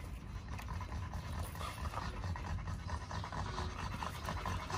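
A dog panting rapidly and steadily.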